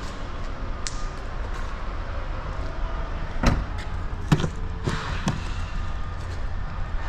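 A few sharp knocks and clunks, five in all and spread irregularly, over a steady low rumble.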